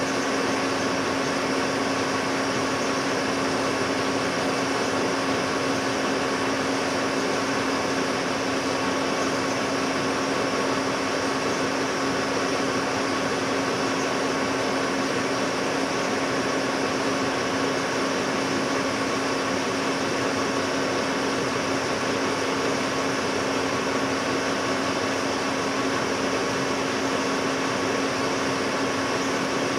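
Metal lathe running with its chuck spinning while turning down a trailer-jack screw: an even mechanical hum with a constant low tone and a fainter higher one.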